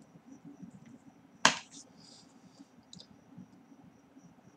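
A single sharp click of a computer keyboard key being pressed, about one and a half seconds in, with a few fainter clicks after it. Faint, evenly repeating high ticks run underneath.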